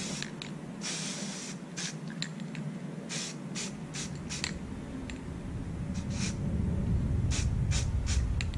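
Aerosol can of white spray paint sprayed onto a jig head in many short bursts of hiss, some brief and some about half a second long.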